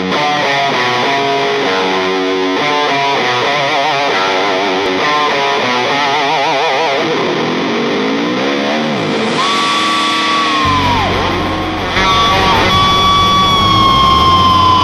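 Distorted electric guitar music. A run of quick notes gives way to wavering notes and a downward slide. Long held high notes follow, bending down near the end over a heavier low backing.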